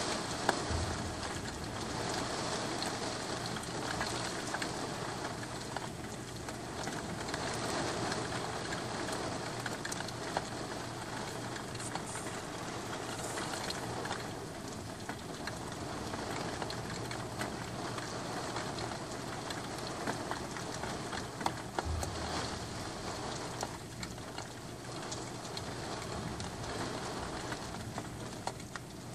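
Heavy rain falling onto a wet street: a steady hiss that swells and eases every few seconds, with many close drops ticking.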